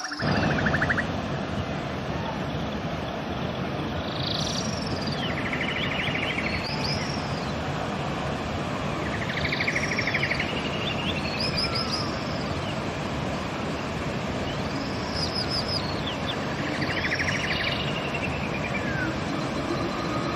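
River water running steadily, with a songbird singing short phrases every few seconds: arching whistled notes and quick rattling trills. There is a brief dropout at the very start.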